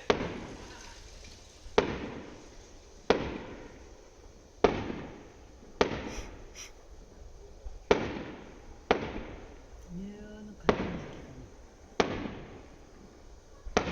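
Aerial fireworks shells bursting, about ten sharp bangs spaced one to two seconds apart, each trailing off in a rumbling echo.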